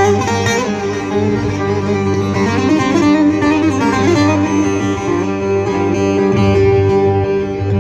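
Instrumental passage of Turkish bozlak folk music: a bağlama (long-necked saz) plucked in running melodic lines over steady held keyboard notes and bass, amplified through the stage sound system.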